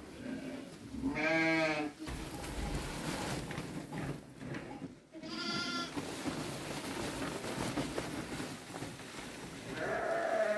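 Lambs bleating, three separate calls: one about a second in, a higher one in the middle and another near the end. Between them there is a steady rustle of feed being poured from a sack into a trough.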